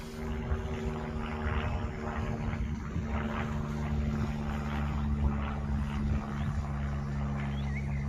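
Airplane flying overhead: a steady, low engine drone.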